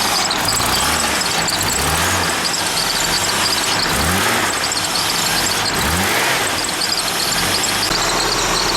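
Holden Commodore wagon's engine running, briefly rising in pitch twice, with a high squeal over a steady noisy wash.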